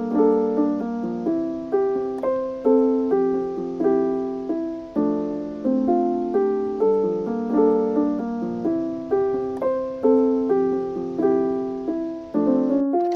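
Background piano music: a gentle, evenly paced melody over repeating chords.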